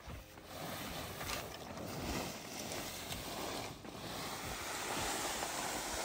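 A tarp loaded with hay being dragged across grass: a continuous scraping rustle that starts about half a second in.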